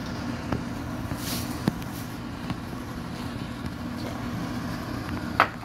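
Steady low rumble of a lit gas stove burner heating a frying pan of oil, with a few light clicks and one sharper knock near the end.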